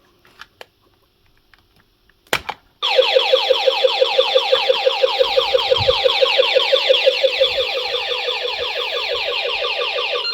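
An intruder alarm sounder goes off in a tamper alarm, triggered by the PIR sensor's tamper circuit. It follows a sharp click about two seconds in, and it is a loud, rapidly repeating warbling tone that starts a little before three seconds in and keeps going.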